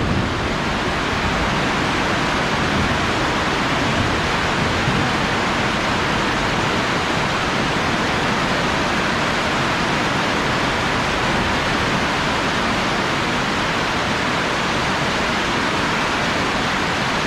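Heavy rain pouring down in a rainstorm: a loud, steady, even rush that does not let up.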